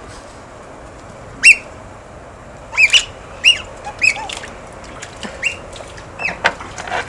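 Otters giving short, high-pitched squeaky chirps, each rising and then falling in pitch: a single one about a second and a half in, then a quick string of about ten more from about three seconds on.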